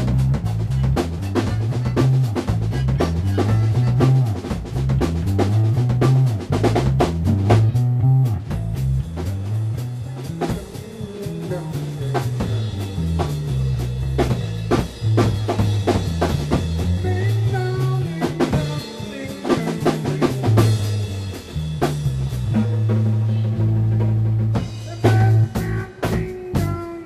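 Instrumental funk-rock jam of drum kit and bass: busy drumming over a bass line that climbs and falls in steps. Near the end the bass holds one long low note for a couple of seconds before the drums and moving bass pick up again.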